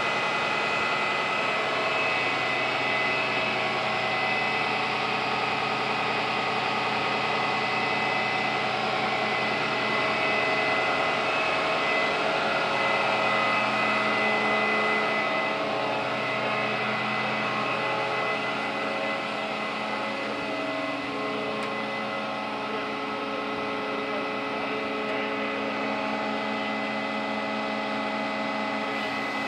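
Smeal aerial ladder fire truck's engine and hydraulics running steadily as the aerial ladder is raised and moved. The pitch shifts slightly about halfway through.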